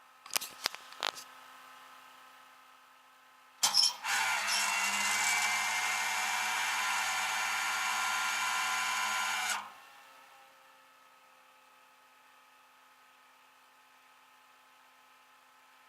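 A few sharp clicks, then a motor on a tow truck's loading gear runs with a steady mechanical whine for about six seconds and cuts off sharply.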